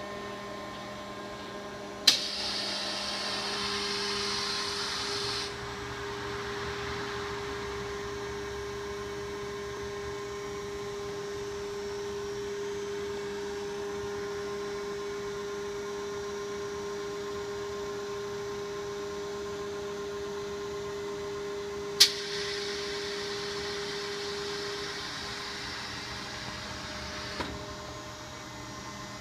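Plastics-processing machine running with a steady hum and a steady higher tone. Twice, about 2 s and 22 s in, a sharp click is followed by a hiss that lasts a few seconds.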